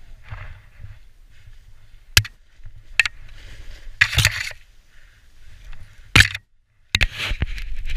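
Snowboard riding through deep fresh powder: a hiss of sliding snow broken by several sharp scrapes and knocks, a brief hush a little past six seconds in, then a louder rush of snow near the end.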